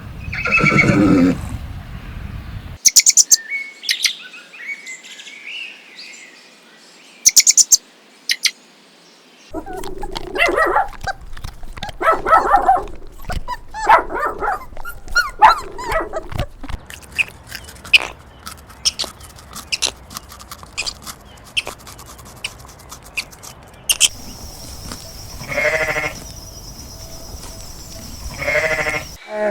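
Goats bleating: a run of short calls, one after another, with sharp clicks and chirps in the gaps between them.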